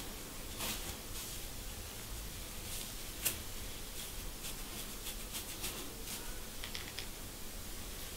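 Fingernails and a thin wooden pick scratching and picking at a dry, dandruff-flaked scalp through short hair. The sound is soft, irregular dry scratches and small crackling clicks over a steady hiss, with one sharper click about three seconds in.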